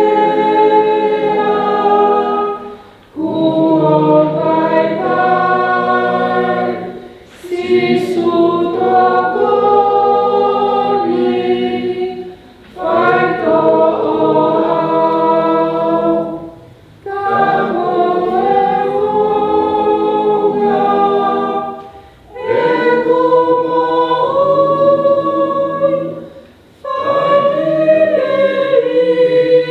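A small family group of men, women and children singing a song together in several voices, in phrases of about four to five seconds with short pauses for breath between them.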